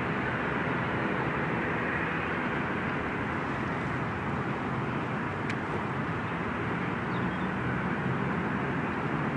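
Steady outdoor background roar and hiss with no clear rhythm, with a single faint sharp click about halfway through.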